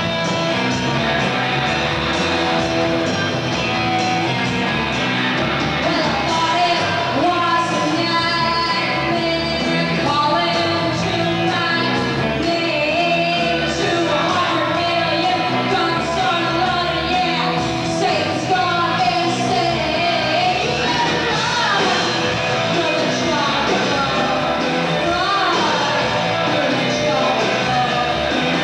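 A live rock band plays: electric guitar and drums, with a woman singing and shouting into a microphone over them.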